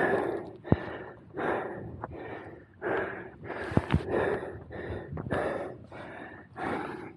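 A person breathing hard, in quick rhythmic puffs about one and a half times a second, with a few sharp clicks in between.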